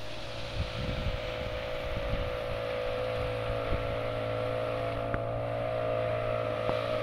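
Boat engine running with a steady drone of unchanging pitch, with wind buffeting the microphone in low, irregular gusts.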